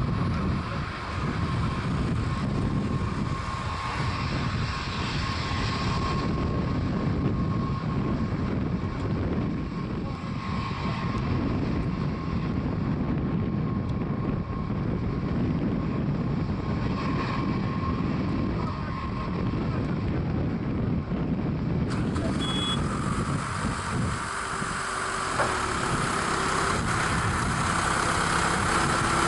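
Antonov An-124 Ruslan's four D-18T turbofan engines running at taxi power: a steady rushing jet noise with a thin, even whine. The whine grows stronger over the last several seconds as the aircraft turns its engine exhausts toward the listener.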